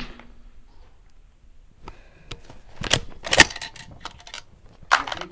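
Bolt of a Ruger Precision Rifle being worked: a run of sharp metallic clicks and clacks as the bolt is lifted, drawn back to eject the spent 6.5 Creedmoor case and run forward to chamber the next round. The loudest clacks come about three seconds in, with a few more near the end.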